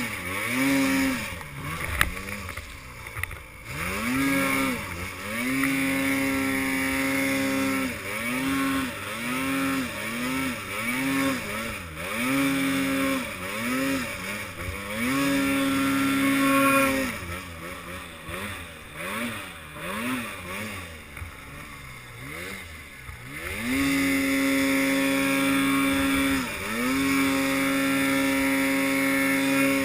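Arctic Cat M8 snowmobile's two-stroke engine revving up and easing off again and again as it is throttled through deep snow, with longer stretches held at high revs. There is a quieter spell of lower revs around the middle.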